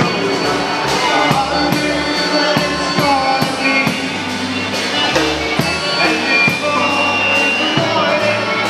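Polka band playing live: drum kit with cymbals, guitar and other instruments over a steady beat.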